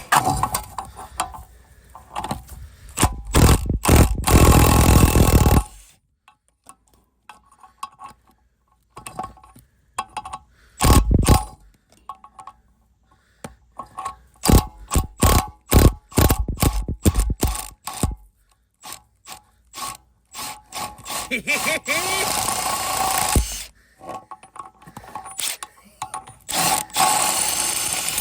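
Workshop metalwork on a seized suspension bolt in a car's rear hub: runs of sharp metal-on-metal hammer blows, with longer stretches of power-tool noise, while the heavily corroded bolt is forced apart from the hub.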